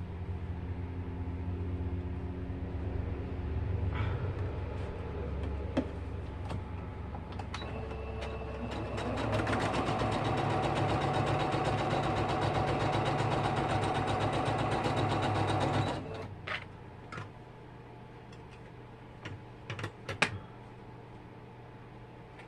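Electric sewing machine stitching a seam: it runs steadily, then faster and louder for about seven seconds, and stops suddenly, followed by a few light clicks.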